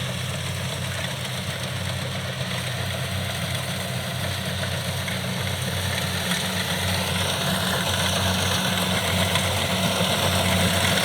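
Kubota DC70 rice combine harvesters running in the field: a steady diesel engine drone with the rush of the harvesting machinery, slowly growing louder as they work closer.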